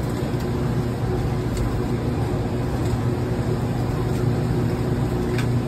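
A motor running with a steady, unchanging hum over a noisy background, with a few faint clicks.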